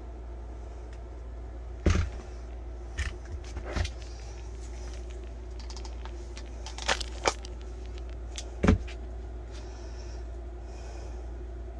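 Snap-on CTB8174 14.4 V lithium-ion tool battery pack being handled: a few scattered plastic knocks and clicks as it is turned over and knocked against a hard surface, the loudest about two seconds in and near the end. A steady low hum underneath.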